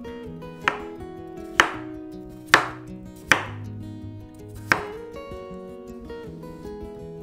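A chef's knife chopping through peeled raw potatoes and knocking on a wooden cutting board: five sharp chops spread over about four seconds, the middle one the loudest. Acoustic guitar music plays underneath.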